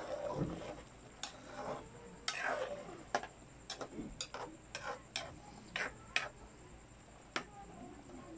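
Metal utensil knocking and scraping against a non-stick wok while chicken pieces are stirred in broth: a dozen or so irregular sharp clicks, with a few longer scrapes near the start and about two seconds in.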